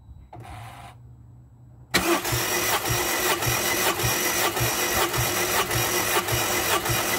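Starter motor cranking a Rover K-series four-cylinder petrol engine with its spark plugs out for a compression test, so it turns over without firing. The cranking cuts in suddenly about two seconds in and carries on steadily with a rhythmic pulse about twice a second.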